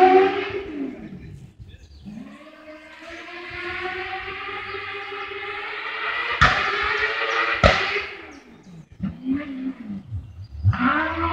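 Autocross racing car engines on a dirt track. One car fades away at the start, then another engine rises in pitch and runs on at a distance, with two sharp bangs in the middle, and a car comes in loud near the end.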